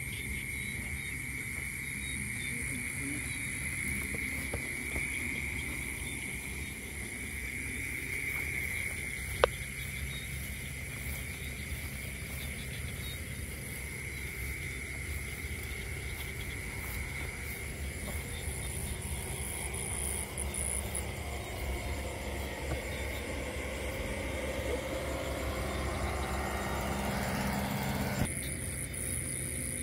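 Night insect chorus: crickets trilling steadily on one high pitch, with a fainter, higher-pitched insect buzz above it. Under it there is low rumbling noise from handling or movement, and one sharp click about nine and a half seconds in.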